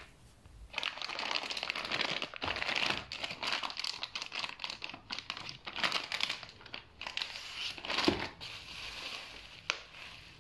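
Clear plastic packaging bags and bubble wrap crinkling as they are handled, in irregular rustles with a few sharper crackles, starting about a second in.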